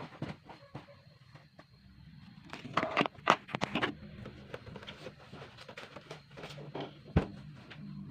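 Pillows and bedding being handled and set down close by: fabric rustling and soft bumps, busiest a few seconds in, with one sharper knock near the end.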